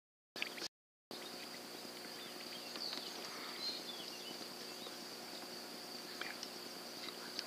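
Outdoor ambience: a steady high-pitched insect drone, typical of crickets, with a few faint chirps and ticks over a low hum. The sound cuts out completely twice in the first second.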